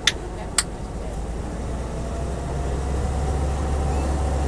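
Engine of an amphibious Duck tour vehicle running as it motors afloat on the river, a low steady drone that grows louder over the first few seconds. Two sharp clicks come right near the start.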